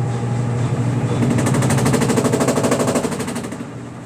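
Midea washing machine on its spin cycle, a steady hum with a fast rattling that starts about a second in and fades near the end: the spin noise whose cause the owner could not find.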